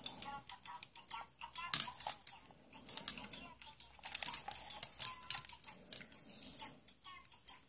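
Irregular sharp clicks and light rattling, like hard plastic toy pieces being handled and knocked together.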